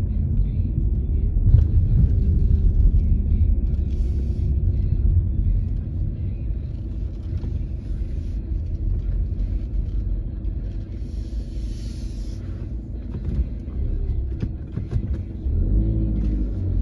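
A car being driven through town streets: steady deep road and engine rumble with a faint steady whine, and a short hiss about eleven seconds in.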